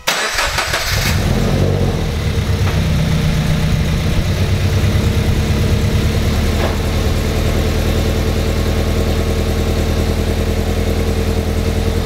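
2014 Subaru BRZ's flat-four boxer engine, fitted with unequal-length aftermarket headers, starting up, flaring briefly in the first second, then settling to a steady, loud, evenly pulsing idle. The header leak has been cured by replacing a missing bolt, and the owner judges the exhaust all good now: just loud.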